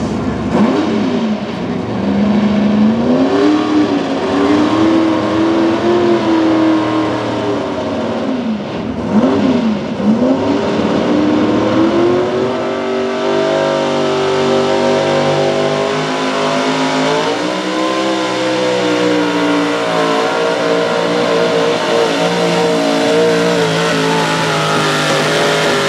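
Modified 4x4 pulling truck's engine revving hard, with two sharp dips and climbs in pitch, then held at high revs with slow rises and falls while it pulls the sled down the track.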